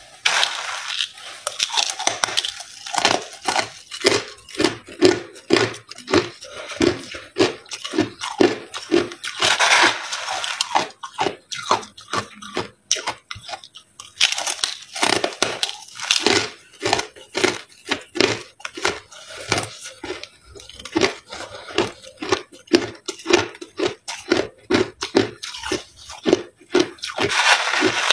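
Crushed ice being chewed with the mouth close to the microphone: a steady run of sharp crunches, roughly two or three a second. A few longer gritty stretches, one near the start and one near the end, come from a metal spoon digging into the bowl of crushed ice.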